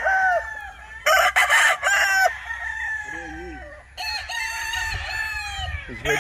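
Several gamefowl roosters crowing, their long drawn-out crows overlapping one another, with one louder, closer crow about a second in.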